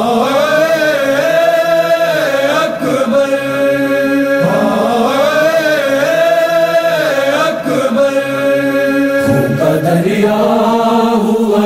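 Wordless chanted vocal intro of a noha, a Shia mourning lament: voices holding long notes that slide slowly up and down in drawn-out phrases, with new phrases beginning about four and nine seconds in.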